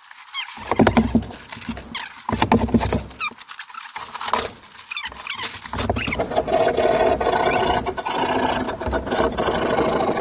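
Fast-forwarded sound of drywall being handled and hung: quick high-pitched squeaky chatter mixed with rapid clicks and knocks, becoming a denser, continuous clatter about halfway through.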